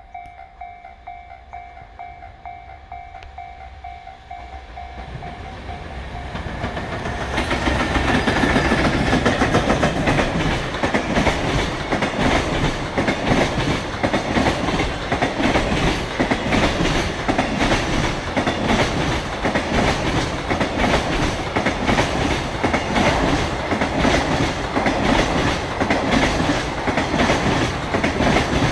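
Level crossing warning bell ringing in a steady repeating pattern. From about six seconds in it is drowned by a JR Freight container train of EF210 electric locomotives and Koki container wagons passing close by, a loud steady rumble with the wheels clattering rapidly over the rail joints.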